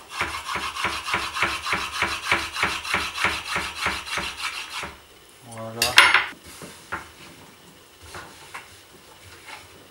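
Chef's knife chopping zucchini on a wooden cutting board: quick, even strokes at about four or five a second for around five seconds. Then one louder knock and a few light scattered taps as the pieces are scraped together.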